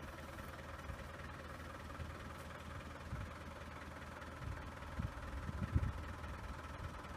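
Vehicle engine running with a steady low rumble, with a few short low thumps about four to six seconds in.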